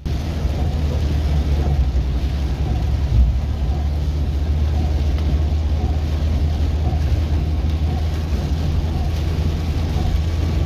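Car driving on a rain-soaked road, heard from inside the cabin: a steady low engine and road rumble with the hiss of tyres on wet tarmac.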